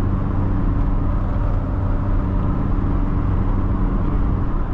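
Volkswagen Gol G3 driving steadily, its engine running with road noise, heard from inside the cabin.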